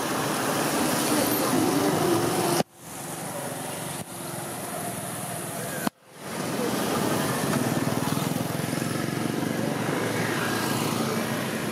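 Steady outdoor background noise, a haze like distant traffic with faint far-off voices. It drops abruptly to a quieter stretch about two and a half seconds in and jumps back up about six seconds in.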